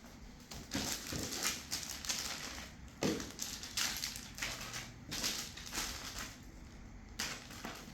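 Packaging being handled, with irregular rustling and crinkling and a few sharper crackles.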